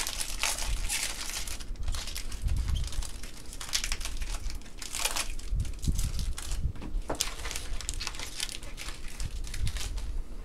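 Crinkling and rustling in irregular bursts, with light knocks, as trading cards and their plastic and foil packaging are handled.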